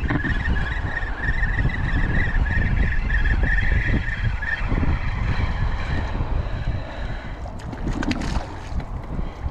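Wind buffeting the action camera's microphone with a steady low rumble, with a wavering high whine through the first half. Near the end a hooked whiting thrashes and splashes at the water's surface.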